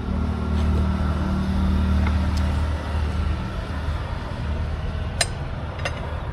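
A motor vehicle engine running steadily nearby, strongest over the first few seconds, with two sharp metallic clicks near the end.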